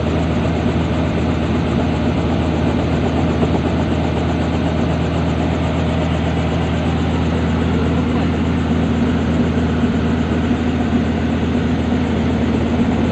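Light helicopter's engine running steadily on the ground, a constant low drone that does not change or cut out.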